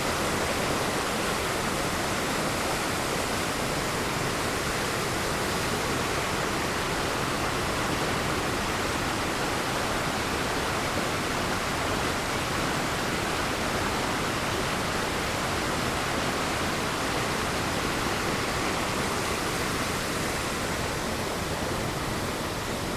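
Waterfall pouring steadily: an even, unbroken wash of falling-water noise.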